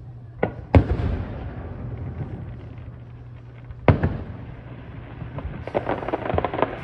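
Aerial firework shells bursting: a small pop and then a loud boom under a second in, another loud boom about four seconds in, then a run of rapid crackling near the end from crackling stars.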